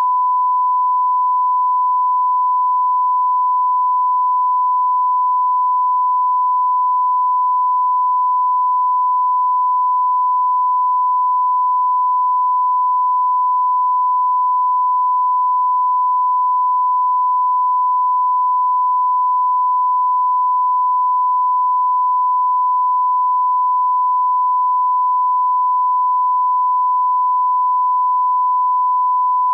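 Steady 1 kHz sine test tone, the line-up reference tone that goes with broadcast colour bars, one unbroken pitch.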